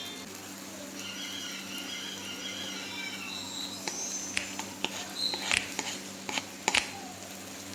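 Faint kitchen sounds over a steady low hum: about a second in, a thin wavering squeal lasting about two seconds, then several scattered light clicks.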